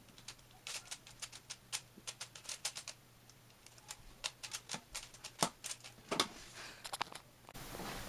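Plastic clicking and clacking of a stickerless 3x3 Rubik's Cube as its layers are turned by hand, in quick irregular runs of turns with a pause of about a second near the middle.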